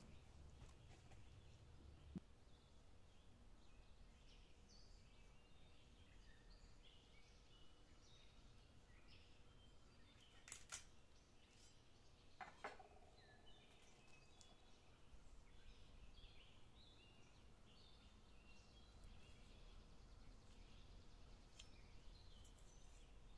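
Near silence with faint bird chirps throughout, and a few brief sharp clicks and knocks (about two seconds in and again around ten to thirteen seconds in) from a large knife cutting a raw whole chicken on a stone board.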